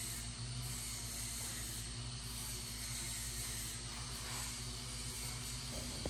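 Steady background hiss with a faint low hum, no distinct work sounds.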